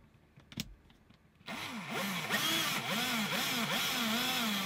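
Cordless drill starting about one and a half seconds in, drilling a tiny pilot hole for self-tapping screws; its motor speed rises and falls unevenly, then holds steady near the end.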